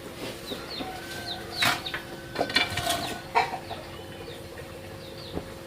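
Chickens clucking, with short high peeping calls repeated throughout and a few brief louder noisy sounds between about one and a half and three and a half seconds in.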